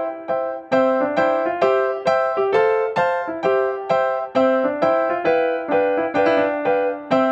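Background music: a piano-like keyboard plays a melody of single struck notes, about two to three a second, each note fading before the next.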